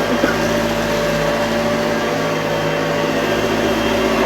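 1985 Hoover Junior Dirtsearcher U1206 upright vacuum cleaner running steadily, its motor giving an even hum, with a couple of small clicks just at the start.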